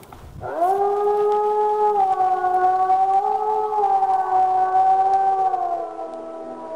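A wolf howling: one long howl that rises at the start, holds a nearly steady pitch for about five seconds, then sinks and fades.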